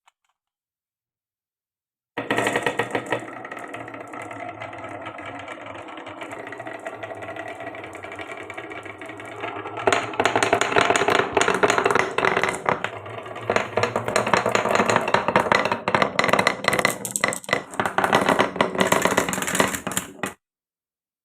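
Marbles rolling and clattering down a wooden marble run: a dense stream of clicks and rattles that becomes louder and busier about halfway through. It starts and stops abruptly.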